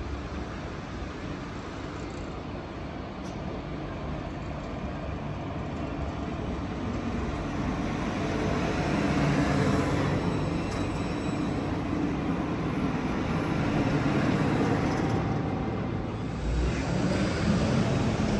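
Alstom Citadis tram running, a continuous rail-vehicle noise that grows steadily louder through the first half and then holds.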